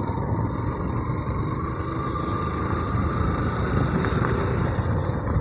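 Yamaha FZ V2 motorcycle's single-cylinder engine running steadily while riding, a constant low rumble with a faint steady whine.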